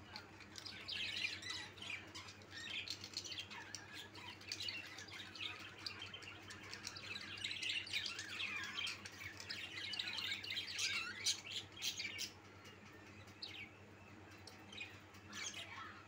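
A flock of caged budgerigars chirping and chattering, many birds overlapping in a dense stream of short, high chirps and squeaks. The chatter thins to a few scattered calls near the end.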